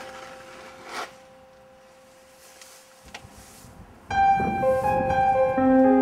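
Piano music: a few held notes dying away, with a soft knock about a second in, then piano playing starts loudly about four seconds in.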